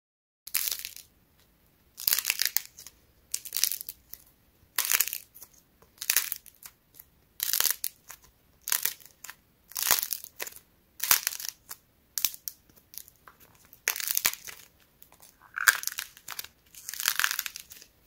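Dried clay figure being bent and broken apart by hand: over a dozen crunchy cracking bursts, about one a second, as the clay face splits and crumbles.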